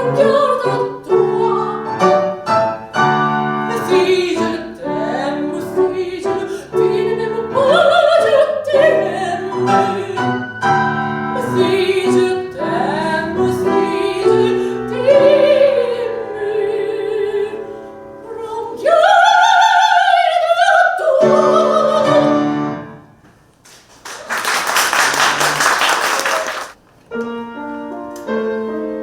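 Operatic soprano singing an aria with piano accompaniment, rising to a long held high note, then closing. A brief burst of applause follows, and then the piano starts a quiet introduction.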